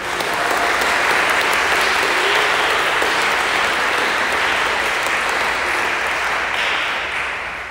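Audience applauding, a steady clatter of clapping that dies away near the end.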